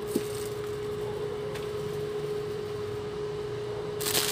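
Induction cooktop running under a frying pan, its cooling fan giving a steady hum with a constant mid-pitched tone, and a small click just after the start. A short burst of hiss comes near the end.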